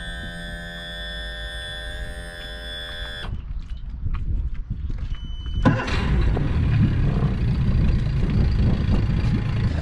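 A steady held tone cuts off about three seconds in. About five seconds in there is a short beep, and a moment later a 50 hp Mercury FourStroke outboard cranks, catches and settles into a steady low idle, run cold to warm it up.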